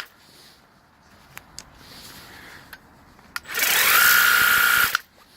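Worx Hydroshot cordless pressure washer running in a short burst: its motor and pump spin up with a rising whine that settles into a steady high tone over the hiss of the spray, for about a second and a half, then stop suddenly. A few light clicks come before it as the nozzle is set.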